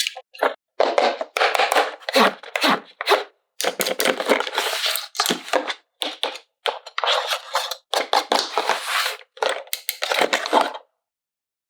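Plastic packaging crackling and crinkling as it is handled and torn, in irregular bursts with short silent gaps between them.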